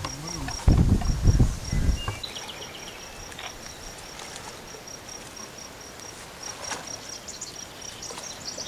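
Outdoor insect chorus: a high, steady cricket-like chirp pulsing about four times a second, with short descending trills near the start and end. About a second in, a loud low rumble on the microphone lasts about a second.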